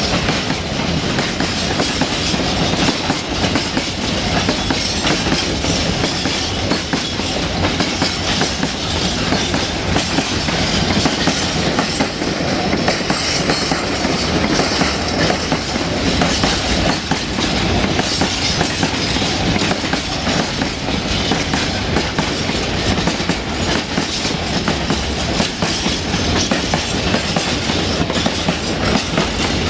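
Long freight train of hopper wagons rolling past: a steady rumble of wheels with continuous clickety-clack as the wheelsets cross the rail joints of the jointed track.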